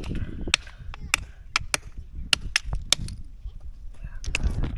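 Hammers knocking on spider conch shells, a quick irregular run of sharp cracks and taps as the shells are broken open to get the meat out.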